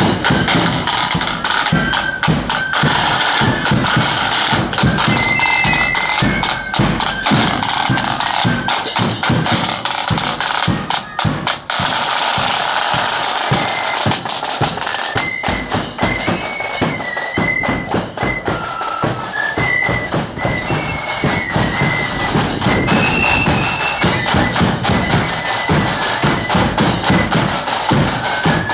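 Marching flute band playing a tune: flutes carry a high melody over rapid, steady side-drum beating.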